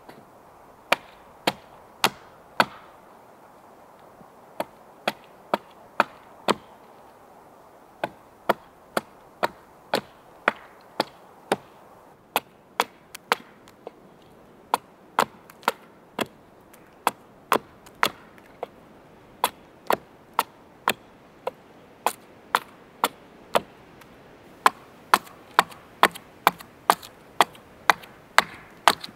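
An axe chopping into wood, crisp strikes about two a second in runs of a few to a dozen, with short pauses between runs.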